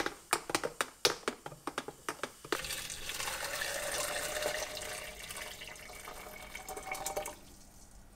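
A run of quick, sharp clinks of a metal spoon stirring in a glass measuring jug, then hot baking-soda water poured into a foil-lined glass, running steadily for about five seconds before stopping.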